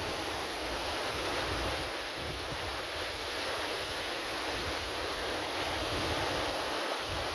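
Sea surf washing in as a steady hiss, with wind gusting on the microphone underneath as a low, uneven rumble.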